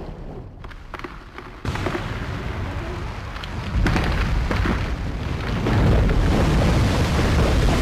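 Glacier ice calving and collapsing: a continuous deep rumble with a hiss of falling ice and spray. It jumps louder suddenly about two seconds in and grows heavier again about four seconds in.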